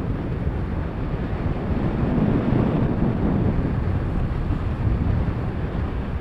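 Wind buffeting the microphone of a handheld action camera on a downhill ski run, a steady low rumble mixed with the hiss of skis sliding over packed snow.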